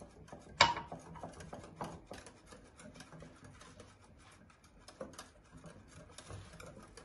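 Wire whisk beating runny cake batter by hand in a glass bowl: fast, even clicking of the wires against the glass, with one sharper knock about half a second in.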